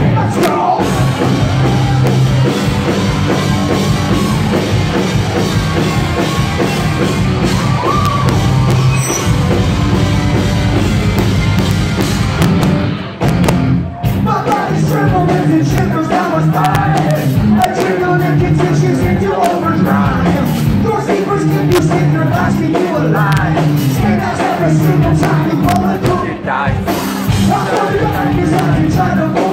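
A post-hardcore rock band playing live through a loud PA, with a male lead singer singing over guitars and drums. The music breaks off briefly about thirteen seconds in, then the vocals come back strongly over the band.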